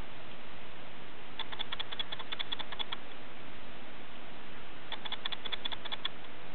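Two short runs of rapid ticking, about nine ticks a second, each lasting a second or so, over a steady hiss.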